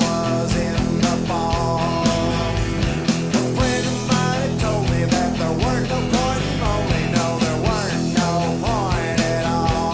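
Alternative rock song played from a vinyl record: a full band with guitar, bass and a steady drumbeat, and sliding melodic lines above.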